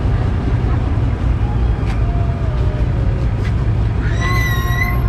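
Steady low rumble of a vehicle engine running. About four seconds in, a high pitched tone sounds for about a second.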